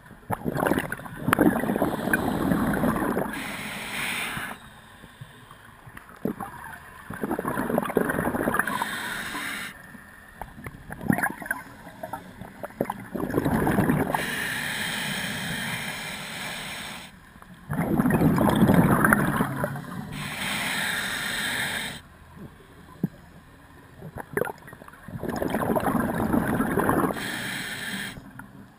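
A scuba diver breathing through a regulator underwater. Five times, a loud rushing, gurgling burst of exhaled bubbles lasts two or three seconds, with a quieter hiss of the inhale between them.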